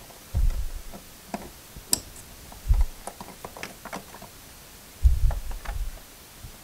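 Plastic electrical connectors being pushed together and clicking into place in the door trim panel's switch wiring, with small scattered clicks and ticks, a sharper click about two seconds in, and three dull low thumps as the panel is handled.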